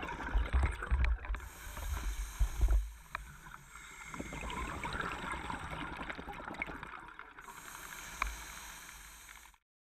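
Muffled underwater sound of scuba diving: breathing through a regulator in two long hissing spells, with bubbles gurgling and low knocks in the first three seconds. It cuts off suddenly near the end.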